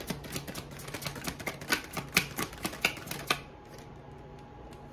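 A deck of oracle cards being shuffled by hand: rapid clicking and slapping of the cards, stopping about three and a half seconds in.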